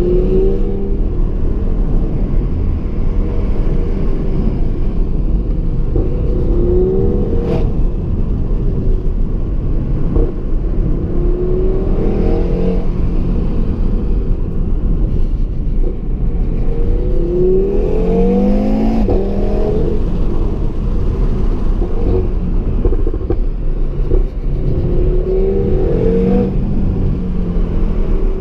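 2017 Audi TT RS's turbocharged 2.5-litre inline five-cylinder engine under hard driving, heard from inside the car: the pitch rises in several runs as it pulls through the revs, over a steady low rumble of engine and road noise. About seven and a half seconds in there is a single sharp crack.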